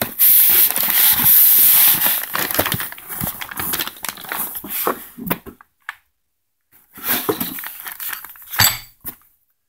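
Plastic packaging crinkling and rustling as hands move plastic-wrapped aluminium jig plates and bagged hardware in a cardboard box, with light clicks and clinks. Loudest in the first couple of seconds, it breaks off completely for about a second midway, then rustles on.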